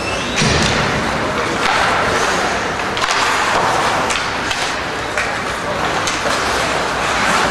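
Ice hockey play in an arena: skates scraping the ice and a string of sharp knocks and thuds from sticks, puck and boards, with indistinct voices in the rink.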